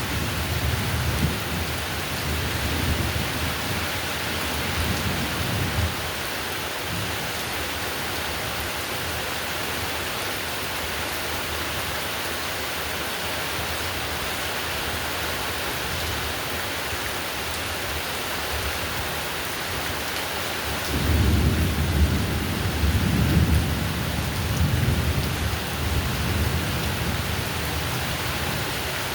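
Steady heavy rain with long low rolls of thunder: one rumbling at the start and dying away about six seconds in, another building about 21 seconds in and fading near the end.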